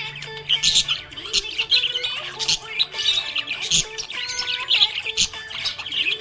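Budgerigars chirping in a rapid, busy stream of short calls, with background music underneath.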